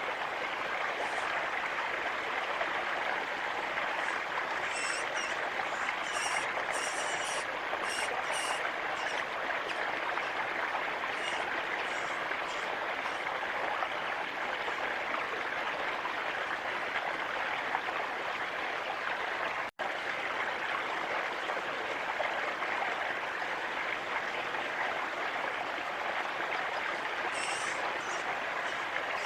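Steady rushing of running water, with runs of high thin bird chirps over it. The sound cuts out for a split second about two thirds of the way through.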